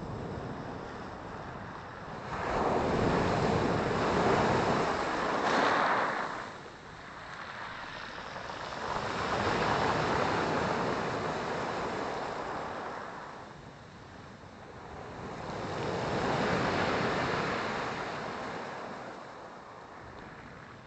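Sea waves breaking and washing on the shore, in three long swells that rise and fall about six to seven seconds apart.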